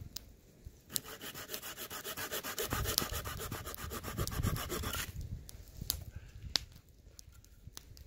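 Small hand saw cutting through a dry wooden pole: about four seconds of rapid, even rasping strokes, then a few sharp clicks.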